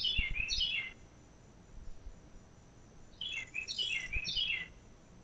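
A songbird singing two short phrases, each a quick run of clear whistled notes stepping down in pitch. The first comes at the start and the second about three seconds in.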